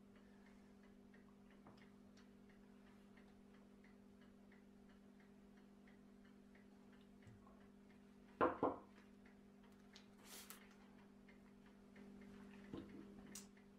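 Quiet workshop with a steady low hum and faint, evenly spaced ticking. A single short knock about eight and a half seconds in and some faint rustling near the end come from metal brake caliper parts being handled on the bench.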